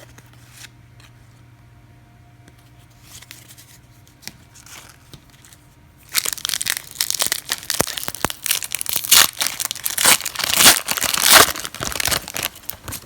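A trading card pack wrapper being torn open and crinkled. It starts loud and sudden about six seconds in, after a few seconds of faint handling.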